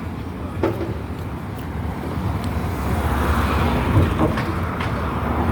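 Road traffic noise: a steady low rumble of vehicle engines and tyres that grows louder about three seconds in.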